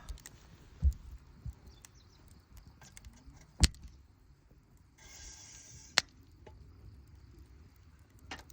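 A burning wood campfire giving a few scattered sharp pops and cracks, the loudest about three and a half seconds in, with a brief hiss shortly before the last crack.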